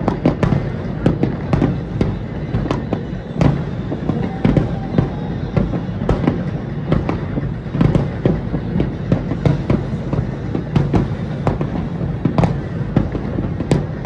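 Aerial fireworks display: a dense, irregular run of shell bursts and crackles, several a second, over a constant low rumble.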